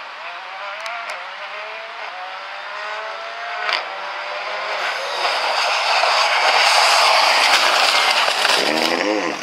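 Ford Fiesta rally car approaching at speed, its engine note climbing in pitch again and again through the gears, with a single sharp crack about four seconds in. It then passes close as a loud rush of engine, tyre and spray noise while it runs off the tarmac onto the grass verge.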